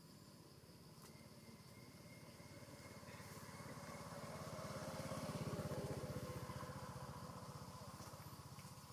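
A motorcycle engine passing by, growing louder to a peak about five or six seconds in and then fading away.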